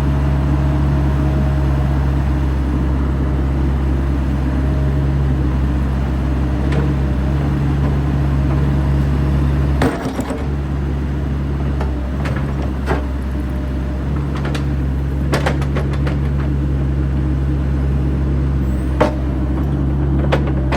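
Bobcat E85 excavator's diesel engine running steadily while the machine is operated, its note dipping briefly about halfway. In the second half, a scattering of sharp clanks and knocks sounds over the engine.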